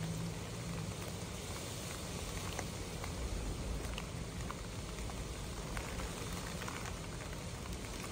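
Heavy rain hitting a car's roof and windows, heard from inside the car: a steady hiss dotted with individual drop taps, over a low rumble.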